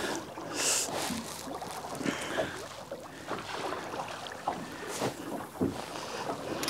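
Sea water lapping against the hull of a small boat, with wind on the microphone and a few faint knocks.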